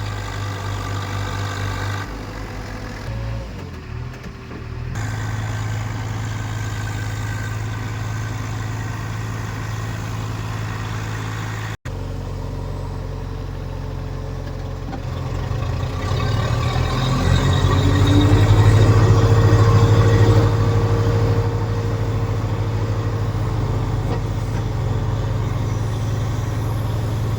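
JCB 3DX backhoe loader's diesel engine running, with a brief drop-out a little before halfway. In the second half it climbs to a louder, harder run for a few seconds with a steady whine over it, then eases back.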